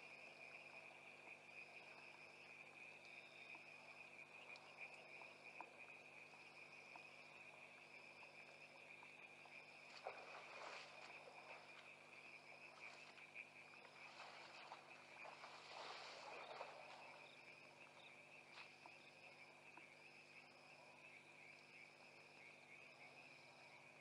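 Faint night insect chorus: a steady high cricket trill with a higher chirp repeating about every second and a half. Two brief rustling noises stand out, about ten seconds in and again around sixteen seconds.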